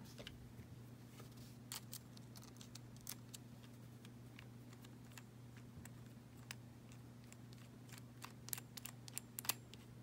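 Small screwdriver driving the screw into an aluminium Gomexus power knob on a spinning-reel handle: faint, scattered metal clicks and ticks, more of them close together near the end, over a steady low hum.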